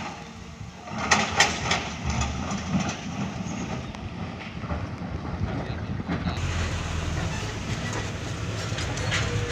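Excavator loading rock at a quarry, with a few clattering knocks of rock about a second in. From about six seconds the sound changes to a dump truck's diesel engine running steadily, heard from inside the cab as it drives a rough dirt road.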